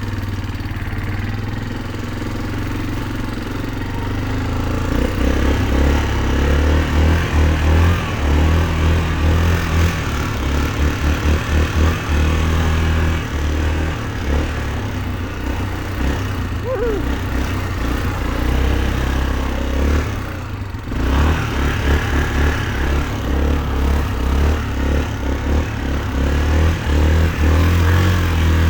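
2004 Yamaha Kodiak 450 ATV's single-cylinder four-stroke engine running as it is ridden, the low rumble rising and falling with the throttle from about five seconds in and dipping briefly near the end. It runs without stalling.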